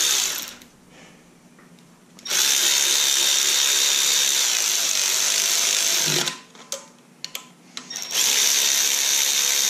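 Cordless electric ratchet spinning head bolts down into a 5.3 LS cylinder head. Its motor whines in steady runs: one stops about half a second in, a long run of about four seconds follows, and another starts near the end. A few short clicks fall in the gap between runs as the socket goes onto the next bolt.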